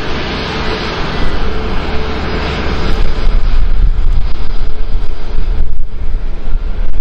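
Airbus A321 jet engines running at taxi idle as the airliner rolls past, a steady roar that grows louder about three seconds in. Wind buffets the microphone underneath.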